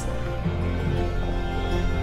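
Background music: held notes over a low bass line, with the bass moving to a new note about half a second in.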